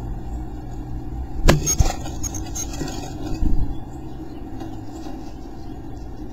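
Carolina chickadee moving about inside a wooden nest box: two sharp knocks or scratches on the wood about a second and a half in, and a few dull thumps a couple of seconds later, over a steady low hum.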